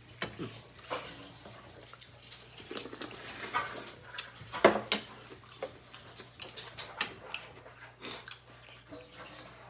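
Table sounds of a meal being eaten by hand and spoon: scattered small clicks and knocks of a spoon against ceramic bowls and plates, with mouth sounds of eating. A sharper knock comes near the middle. A faint steady hum runs underneath.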